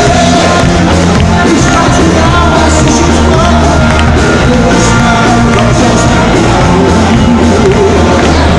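Live rock band playing loudly, with a male lead singer singing into a handheld microphone over electric guitar.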